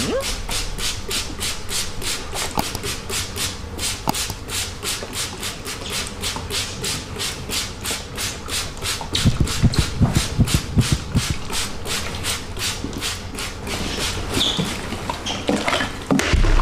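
Hand-pump spray bottle squirting water in quick repeated hissy squirts, about four a second, thinning out near the end. A cluster of low thumps comes around the middle.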